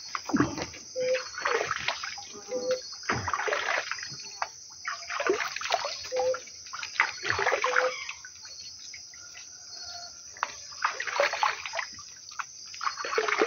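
Shallow river water splashing and sloshing in irregular bursts, easing off for a couple of seconds past the middle.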